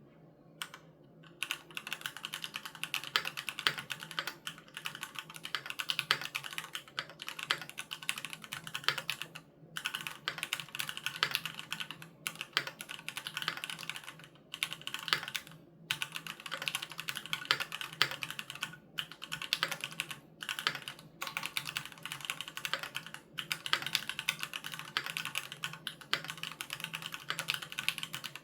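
Fast typing on a Keychron Q3 Knob mechanical keyboard with Gateron G Pro Red linear switches: a dense run of key clicks that begins about a second and a half in and pauses briefly every few seconds.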